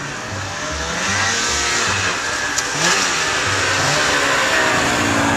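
Snowmobile engines running and revving, their pitch rising and falling and growing louder about a second in.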